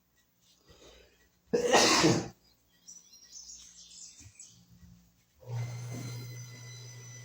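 A single loud cough about a second and a half in. Near the end a steady low electrical hum with a faint high whine starts and keeps going.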